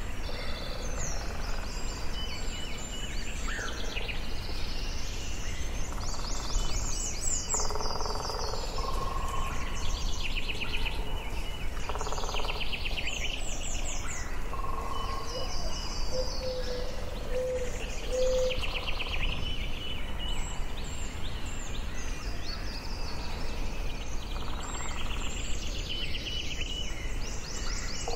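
Forest ambience: several birds singing and calling, with quick repeated trills and chirps and a few lower whistled notes, over a steady low background hum.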